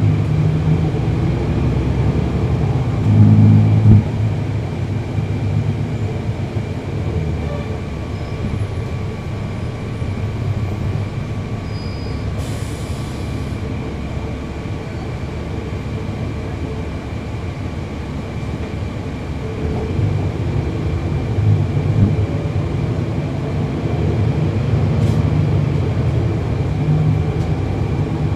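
Cummins ISL9 inline-six diesel of a 2011 NABI 40-foot transit bus heard from inside the bus, running steadily under way. It is louder about three seconds in and again over the last third, and a brief hiss comes about halfway through.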